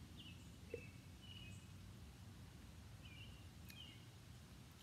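Faint outdoor ambience: a small bird chirping, short high chirps repeating every half second or so, over a low, steady background rumble.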